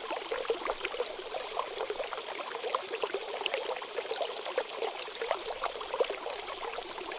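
Water running and trickling steadily, with many small drops and splashes.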